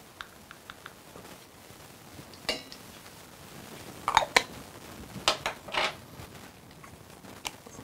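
A measuring spoon scooping ground pepper and knocking against a stainless steel cup: a few light ticks, then several ringing clinks about two and a half, four, and five to six seconds in.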